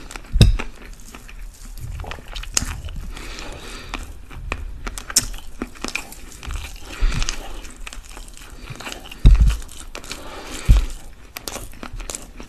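Close-miked eating sounds: fingers pulling apart cooked chicken with soft wet crackles, and chewing and biting of chicken and rice. A few heavy low thumps stand out, about half a second in and twice near the end.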